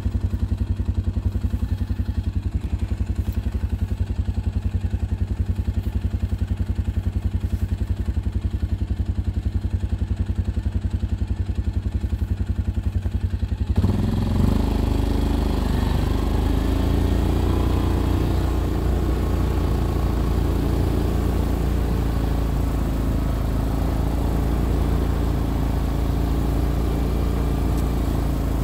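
ATV engine idling with a fast, even low pulsing; about halfway through it abruptly revs up with a brief rise in pitch and then runs steadily and louder as the machine breaks trail through fresh snow.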